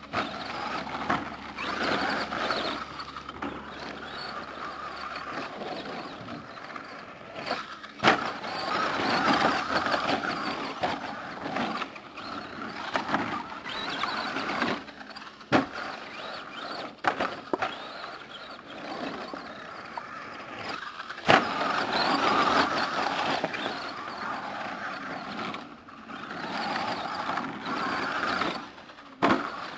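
Electric RC short course truck (Team Associated SC10 with a Kyosho Le Mans 240ST brushed motor) running on dirt: the motor, gears and tyres swell and fade in surges with the throttle. Several sharp knocks stand out, the loudest about 8 and 21 seconds in.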